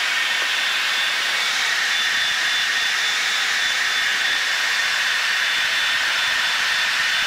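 Steady jet noise inside an F/A-18 cockpit in flight: an even hiss with a faint, thin, steady whine over it.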